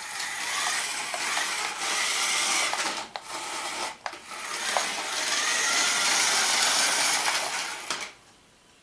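Toy RC monster truck's small electric motor and gears running with a whirring whine. It pauses briefly twice, about 3 and 4 seconds in, and cuts off near the end.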